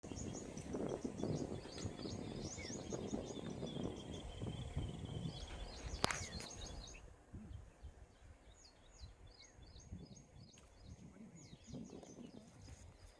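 Small birds chirping in quick runs of short, high notes, several a second, in two spells. A low rumble of wind noise sits under the first half, and there is a single sharp click about six seconds in.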